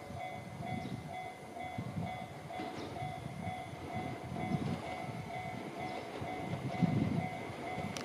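Level crossing bell ringing in a quick, even repeating ding as a train approaches, over the low rumble of the oncoming E261 series Saphir Odoriko limited express.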